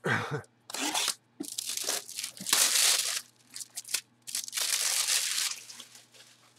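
Sealed cardboard jersey box being torn open by hand: a run of separate tearing and crunching noises as its sealed flaps are broken, the loudest a little under halfway through.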